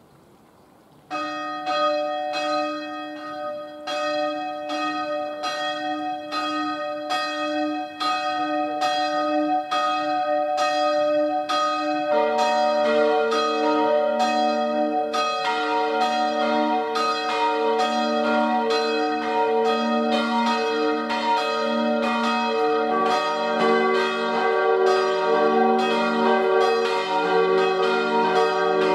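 The four church bells cast by Rüetschi of Aarau in 1888, tuned E-flat, G, B-flat and high E-flat, ringing. One bell starts about a second in, and the others join one by one, about 12, 15 and 23 seconds in, building to the full peal of all four.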